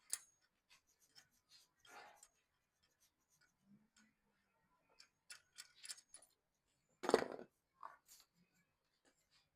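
Faint, scattered clicks and metal clinks of hand tools, a socket wrench working on an engine's spark plug, with one louder clatter about seven seconds in.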